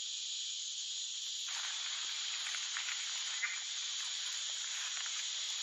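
A snake making a steady, high-pitched warning sound that fills out and reaches lower about a second and a half in.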